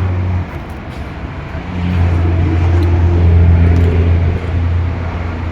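Strong wind buffeting the microphone: a loud, low rumble that drops away about half a second in and surges back about two seconds in.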